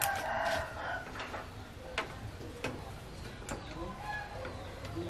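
A loud animal call lasting about a second at the start, then a few sharp metallic clicks as a bicycle rear wheel's hub axle is set into the frame's rear dropouts.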